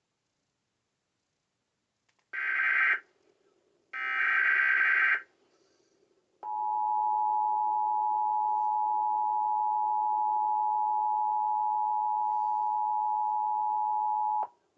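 Emergency Alert System tones: two short bursts of SAME header data tones about a second apart, then the EAS two-tone attention signal held steadily for about eight seconds and cut off sharply, announcing a new severe thunderstorm warning.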